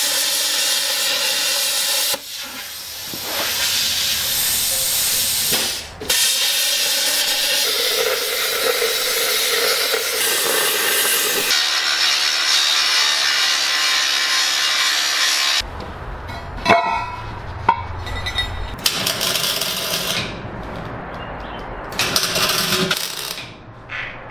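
Metal cutting and welding on steel pipe elbows: a plasma cutter's steady hiss as it cuts through the steel, then an angle grinder cutting steel. In roughly the last third the sound turns to shorter, uneven bursts with some sharp clicks, ending on MIG welding.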